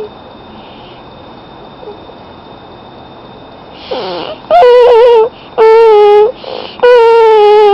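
A child with a tracheostomy voicing through a Passy-Muir speaking valve: after a quiet start, three loud, high, steady held tones about a second each, with short hissy breaths between. They sound like they come out of his nose rather than his mouth.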